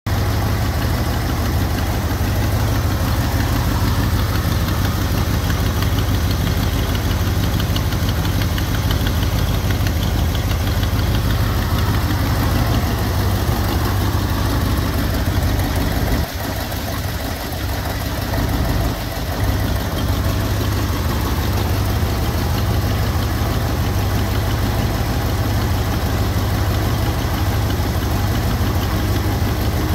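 1965 Ford Thunderbird's 390 V8 idling steadily under the open hood, a few decibels quieter for about three seconds midway through.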